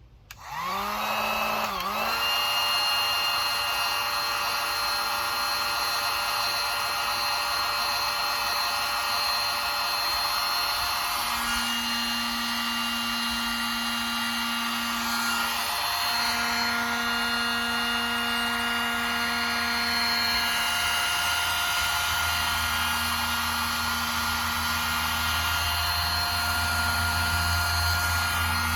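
Electric heat gun switched on, its fan motor spinning up and then running steadily with a blowing hiss, shrinking heat-shrink tubing over a crimped battery cable lug. Its tone shifts slightly a few times as it runs.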